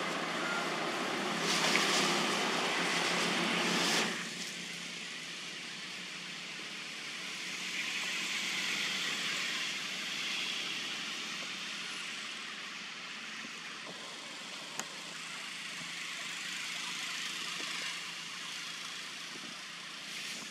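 Steady outdoor background noise with no pitched sounds. A louder, fuller rushing noise fills the first four seconds and cuts off suddenly, leaving a thinner higher hiss. A single faint click comes about fifteen seconds in.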